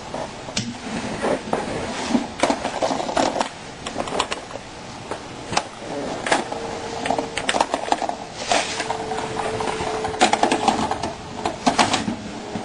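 A malfunctioning 8-track tape player's mechanism clicking and clattering irregularly, with a faint steady hum for a few seconds in the middle.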